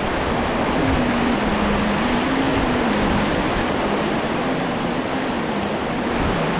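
Fast river rapids rushing steadily over rocks, a constant hiss of whitewater. A faint, low wavering tone runs underneath.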